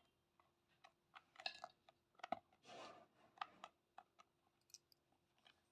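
Faint scattered clicks and light knocks, with one brief rustle about halfway through: plastic parts of a hand mixer grinder being handled.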